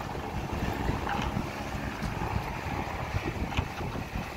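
Wind buffeting the microphone in irregular gusts over the rush and splash of choppy water around a boat.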